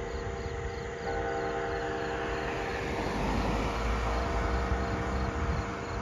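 Church tower bell ringing, struck again about a second in, its hum carrying on throughout. A low rumble swells and fades through the middle, and insects chirp steadily in the background.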